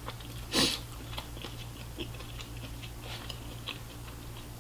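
Close-miked chewing: small wet mouth clicks and smacks, with one louder smack about half a second in, over a steady low hum.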